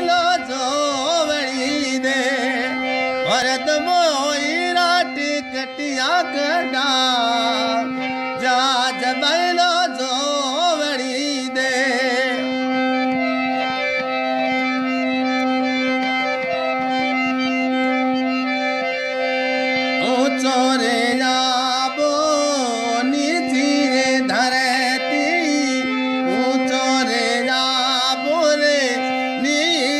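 Music: a voice singing a bending, ornamented melody over a steady drone. The singing drops away for several seconds around the middle while the drone carries on, then comes back.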